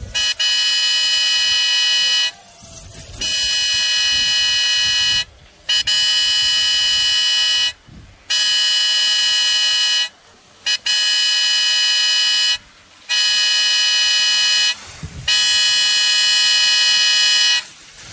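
An air horn blown by spectators in seven long blasts of about two seconds each, with short breaks between them, on one steady high pitch.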